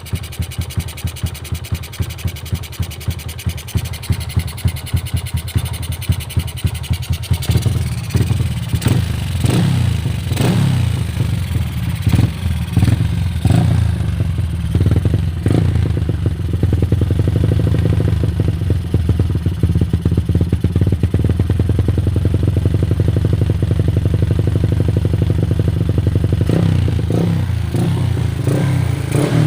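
Yamaha LC135 single-cylinder four-stroke engine, fitted with a 4 mm stroker jackrod, running through a Yoshimura tri-oval aftermarket exhaust. It starts at a slow, pulsing idle, is blipped several times in the middle, then runs at a steady higher speed.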